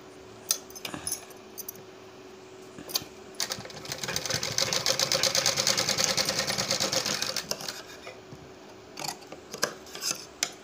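Sewing machine stitching the neckline finish of an embroidered suit in one fast run of stitches for about four seconds in the middle. A few separate clicks sound before and after the run.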